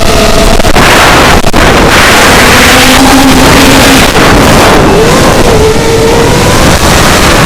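FPV racing quadcopter's four Racerstar 2205 2300KV brushless motors spinning 5-inch three-blade props, heard from the onboard camera. The motor whine holds steady and then slides up and down in pitch with the throttle, over loud wind and propeller rush.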